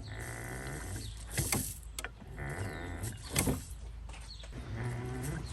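Brake pedal of a 2003 Ford F-350 pumped slowly with the engine off, bleeding air out of a newly installed master cylinder: mechanical squeaks, hiss and knocks recurring about every two seconds.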